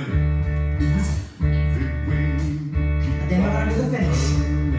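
A song playing, with guitar, a heavy repeating bass line and a singing voice; the music dips briefly about a second in.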